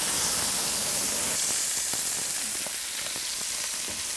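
Smashed minced-beef burger patties frying in rendered bacon fat on a hot cast iron pan: a steady high sizzling hiss with scattered small crackles, the sign of a pan hot enough to sear a crust.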